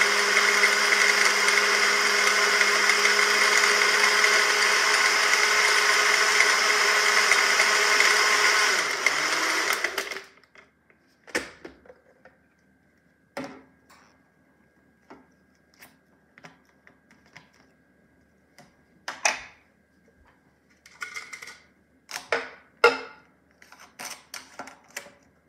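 Syvio 600W personal blender's motor running steadily at full speed, then cutting off suddenly about ten seconds in. Scattered plastic clicks and knocks follow as the cup is taken off the base and its lid handled.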